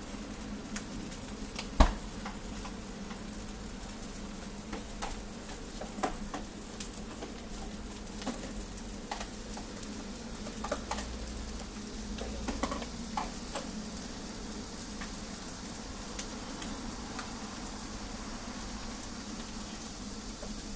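Egg pancakes sizzling on a flat-top griddle, with scattered light clicks and taps of utensils on metal. One sharp knock about two seconds in is the loudest sound.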